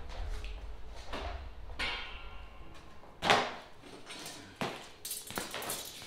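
Kennel parts being handled during assembly: a series of knocks and clatters, the loudest about three seconds in, over a low rumble that fades after about two seconds.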